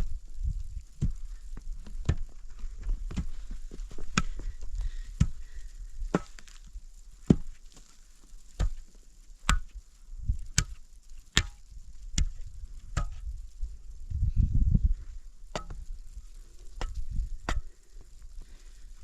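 Sharp knocks at about one a second over low thudding, with a heavier low rumble about three quarters of the way through.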